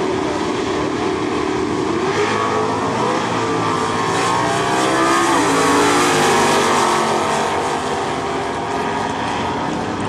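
Two Super Stock V8 drag cars launching off the start line and accelerating hard down the quarter mile. The engine pitch climbs and drops back several times as they shift through the gears, and it is loudest about halfway through.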